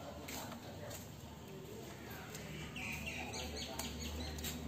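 Light clicks of metal tongs against a charred coconut shell as cooked shrimp are lifted out, with birds chirping around three seconds in.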